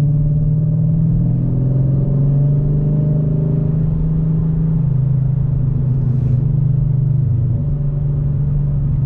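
Dodge Challenger R/T Scat Pack's 6.4-litre HEMI V8, fitted with a Flowmaster muffler, droning steadily while the car cruises. The engine note drops a little about five seconds in and again near the end.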